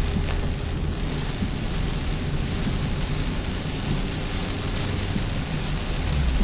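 Rain hitting a moving car, heard from inside the cabin, as a steady hiss over a low rumble of road and engine noise that grows a little near the end.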